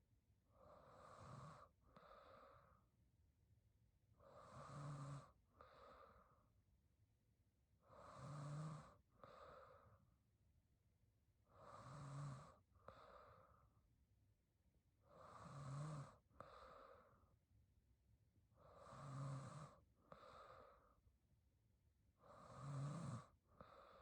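A woman snoring quietly in her sleep, a breath about every three and a half seconds: each a longer, louder breath with a low buzz, then a shorter, softer one.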